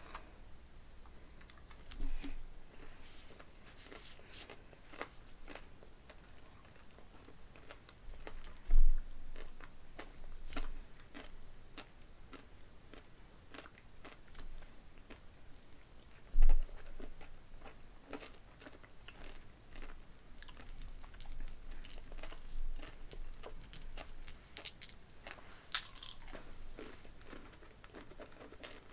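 Close-up chewing and crunching of a big mouthful of pecan pie M&M's, the candy shells cracking in many small irregular crunches. Two louder thumps come about nine and sixteen seconds in.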